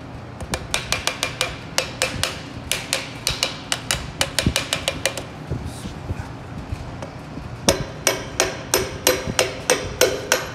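Quick light taps of a hammer handle's butt on a piston crown, driving the piston and its rings through a band-type ring compressor into a Toyota Land Cruiser engine's cylinder bore. About four taps a second, with a pause of about two seconds midway before the tapping resumes.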